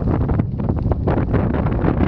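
Strong tropical-storm wind buffeting the microphone: a loud, steady low rumble with constant fluttering.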